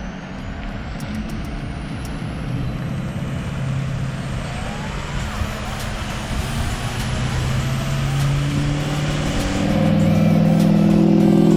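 Road traffic passing on a wide road: a steady rush of tyres and engines. It gets louder over the last few seconds as low humming tones come in.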